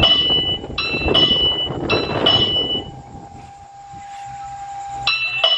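Railway signal bell (genta) ringing in repeated metallic strikes, about five in quick pairs, then a pause with a faint steady hum, then two more strikes near the end. It is the block signal telling crossing keepers that a train will soon pass.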